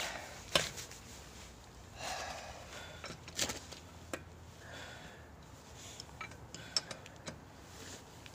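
Metal lug wrench clicking and clanking against a car wheel's lug nuts as they are turned by hand: a handful of short, sharp knocks spread irregularly over several seconds.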